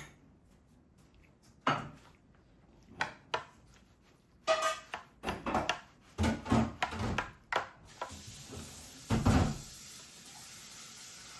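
Dishes and utensils clattering in a series of separate knocks and clinks, with a steady hiss starting about eight seconds in.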